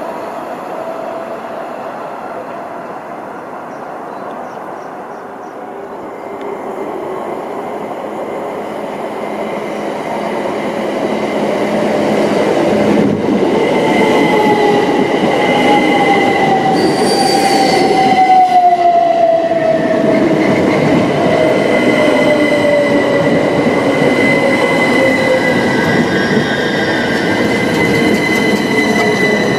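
c2c Class 357 Electrostar electric multiple unit running in alongside the platform, its rumble growing louder as it comes near. From about halfway through, the electric traction whine falls steadily in pitch as the train slows, over a steady high-pitched squeal.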